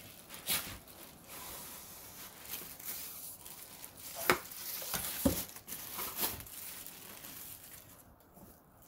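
Bubble wrap and plastic packing rustling and crinkling as a cardboard box is handled and pulled out of a packed carton, with several sharp taps and knocks of the box, the loudest about four and five seconds in.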